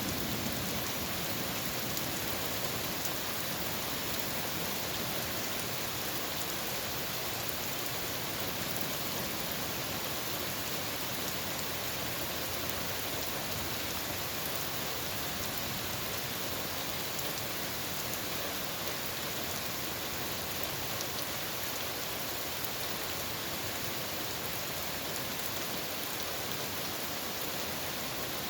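Steady rain falling in a thunderstorm: an even hiss with faint scattered drop ticks.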